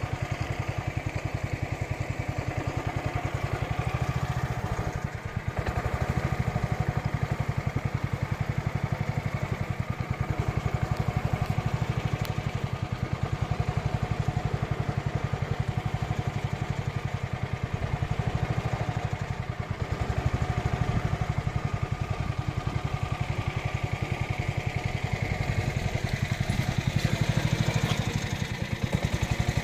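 Small tour boat's engine running steadily with a fast low putter, easing off briefly and picking up again.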